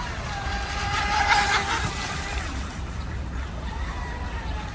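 Small RC speedboat's 3400KV brushless electric motor, on an 11.1 V battery, whining as it runs across the water, its pitch wavering and dropping near the end. A brief louder rush of noise comes about a second in.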